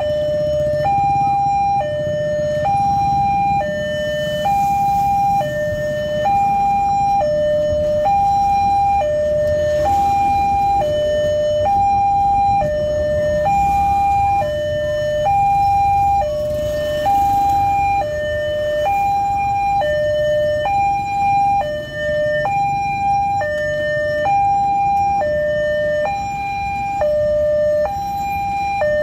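Railway level crossing warning alarm: an electronic two-tone signal alternating high and low, about one high-low cycle a second, sounding steadily because a train is approaching and the barriers are closing.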